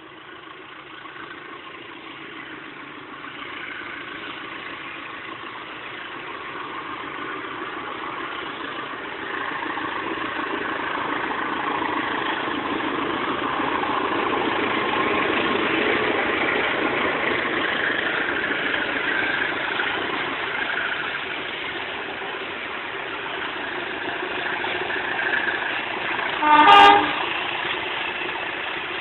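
CC 203 diesel-electric locomotive passing close by, its engine and wheels growing louder to a peak about halfway through and then easing off. Near the end a train horn gives one short blast.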